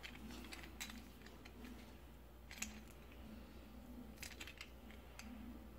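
Faint handling noise: a few light clicks as a metal gas regulator with its braided plastic hose and clamp is turned and moved in the hands.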